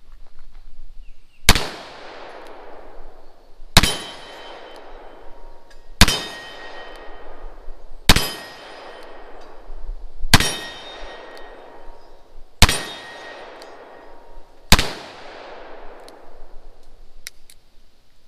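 Taurus Model 66 .357 Magnum revolver firing seven single shots, evenly spaced a little over two seconds apart, each sharp crack followed by a long fading echo. A few light clicks follow near the end.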